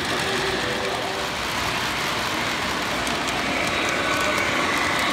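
Model train running on the layout track: a steady rumble of wheels and motor with light clicking, getting a little louder near the end as the diesel locomotive passes close.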